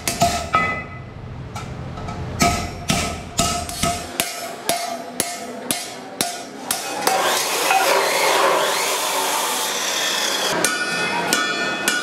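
A hammer striking a flat steel strip laid over a steel channel to curve it into a hoop, in a steady run of ringing metallic blows about two a second. Past the middle the strikes give way to a few seconds of denser, continuous noise, then quick blows start again near the end.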